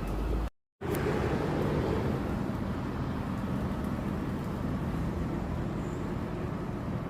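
Steady road-traffic noise, a low, even rumble of street ambience, broken by a split-second dropout to silence about half a second in.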